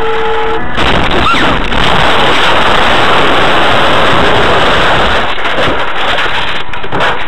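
A car crash heard through the car's own dashcam microphone: loud, continuous rough noise that starts about a second in, just after a brief musical note, as the camera is knocked loose.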